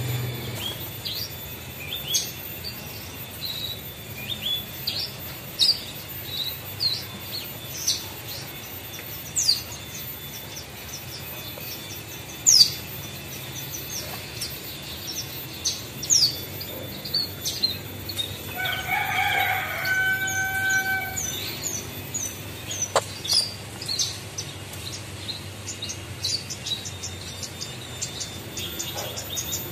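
Branjangan (Javan bush lark) singing: scattered short, sharp, high chirps and whistled notes, turning into a fast run of rapid ticking notes near the end.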